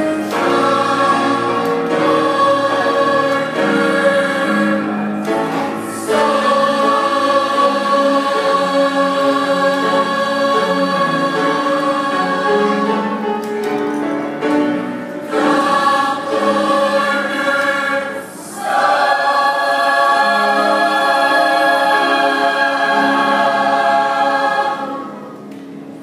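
Mixed choir singing in long held chords, with brief breaks between phrases; the final chord stops shortly before the end.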